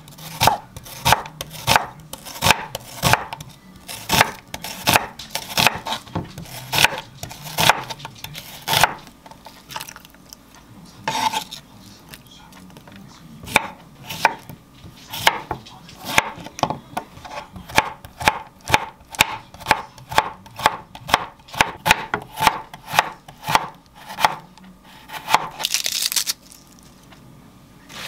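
Chef's knife chopping through an onion and then a cucumber on a wooden cutting board: a steady run of sharp strikes about two a second, with a pause of a few seconds partway through. A short rustle near the end.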